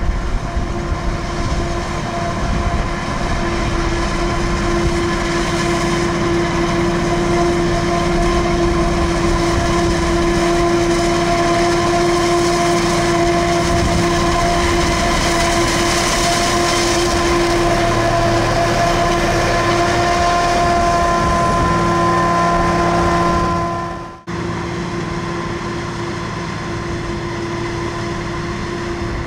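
New Holland FR920 self-propelled forage harvester chopping maize: a steady, loud mechanical drone with a high whine over it. About 24 s in the sound cuts out for an instant and comes back a little quieter.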